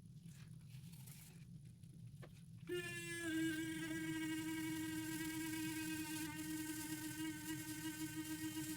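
A small electric motor switches on about three seconds in and runs with a steady buzz, its pitch settling quickly after the start. A faint low hum comes before it.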